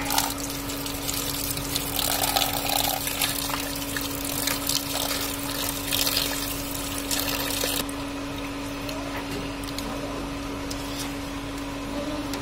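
Running water splashing into a steel plate of raw prawns as hands rub and slosh them clean. The flow stops about eight seconds in, leaving only faint splashes. A steady low hum runs underneath throughout.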